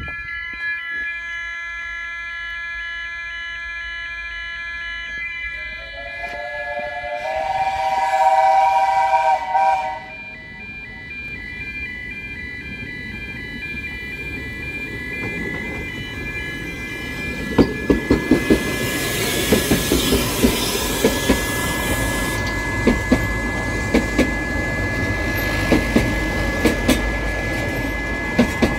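Level crossing alarm sounding steadily, the alarm the uploader calls faulty. About six seconds in, a narrow-gauge steam locomotive's whistle blows loudly for several seconds. From about halfway, the steam train rumbles over the crossing with hiss and repeated clicks of its wheels over the rail joints.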